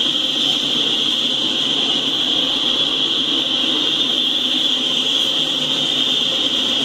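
Double-stack container cars of a freight train rolling past: a steady rumble of wheels on rail with a steady high-pitched whine over it.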